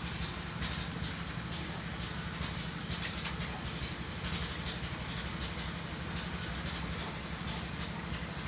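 Fuel-injected motorcycle engine running at a steady idle, with a fast even low pulsing.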